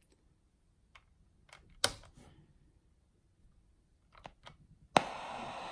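A few small clicks, then about five seconds in a sharp click as the Sony ICF-SW7600 receiver switches on and its speaker gives out steady FM static hiss with no station in it.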